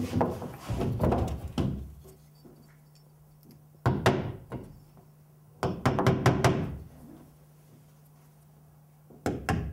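A hammer drives nails through a sheet of drywall into wooden wall studs. The blows come in four short runs of several quick strikes each, with pauses between the runs.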